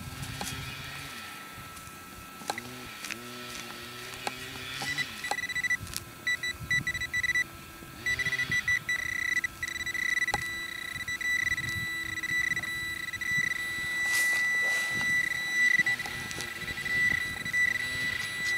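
Metal-detecting pinpointer in the dug hole giving a high electronic tone, first in short broken beeps, then a steady continuous tone from about eight seconds in: the alert that the probe is on a metal target, here a bent penny.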